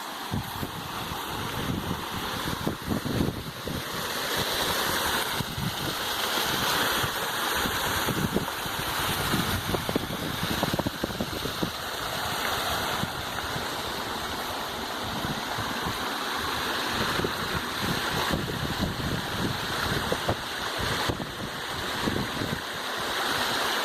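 Steady rush of water falling at a waterfall, with an irregular low rumble of wind on the microphone.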